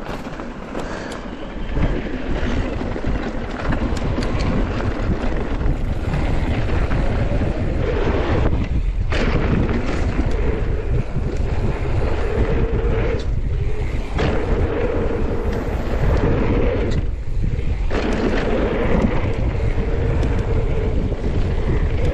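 Wind buffeting the microphone of a camera riding on a mountain bike at speed down a dirt trail, over tyre rumble and the rattle of the bike. The trail noise falls away briefly three times while the low wind rush carries on.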